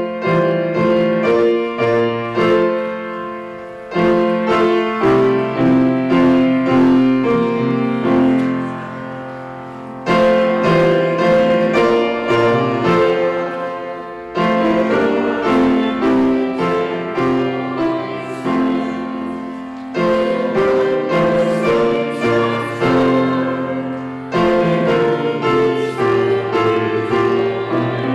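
Grand piano playing a slow piece in full, ringing chords, with short breaks between phrases every four to six seconds.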